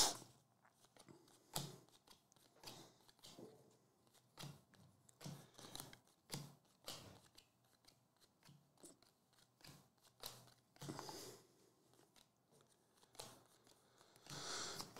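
Faint, irregular clicks and slides of glossy chrome trading cards being flipped one at a time through a stack in the hand, roughly one a second, with a sharper click at the start.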